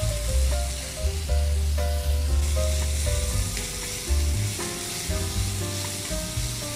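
Cubes of beef brisket sizzling steadily as they sear in hot oil in a pan, under background music with a plain melody and a steady bass.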